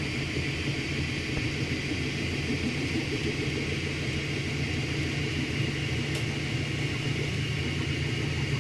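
Anet A8 3D printer running mid-print: a steady mechanical hum from its stepper motors and cooling fans, with no distinct knocks or pauses.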